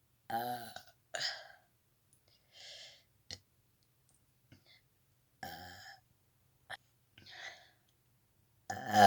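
A girl burping on command: three short pitched burps, about half a second in, about halfway, and the loudest near the end, with airy breaths and small mouth clicks between them.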